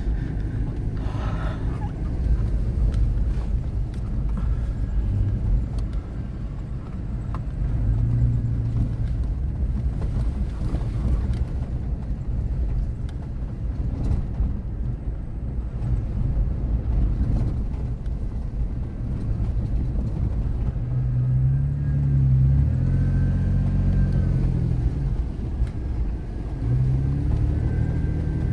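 Off-road vehicle driving slowly over a washboarded sand trail: a steady low engine and tyre rumble, with the engine note rising and growing louder about three quarters of the way through and again near the end.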